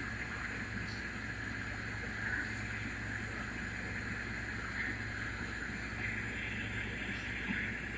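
Steady low hum with a constant hiss over it: indoor room tone of running machinery, with a few faint ticks.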